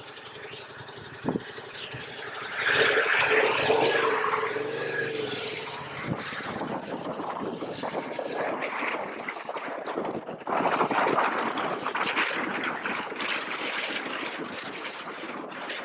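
Yamaha MT-07 parallel-twin engine pulling away from a stop about two and a half seconds in, its pitch rising and falling as it accelerates. Wind then rushes steadily over a helmet-mounted microphone as the bike rides on, getting louder again about ten seconds in.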